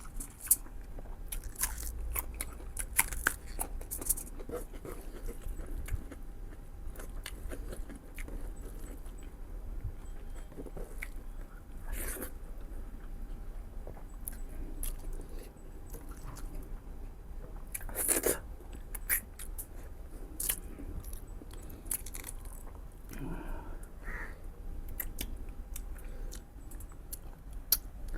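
Close-miked chewing and biting of mutton ribs: irregular sharp mouth clicks and smacks, with a louder one about eighteen seconds in.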